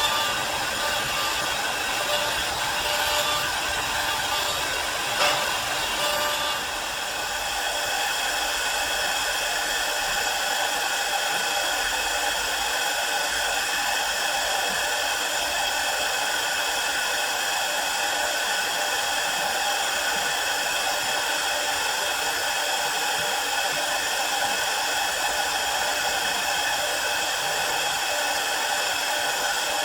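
CNC wood lathe running: a steady whine made of several high tones over a rushing hiss, with a sharp click about five seconds in and a slight change in tone a second or so later.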